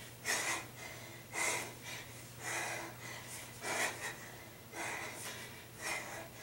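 A woman's hard breathing during kettlebell swings: a short, sharp breath out with each swing, about once a second.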